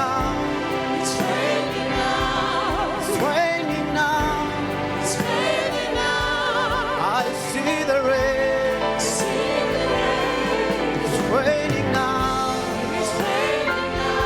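Gospel choir singing with instrumental backing, voices holding notes with a wavering vibrato, and a cymbal-like splash about every two seconds.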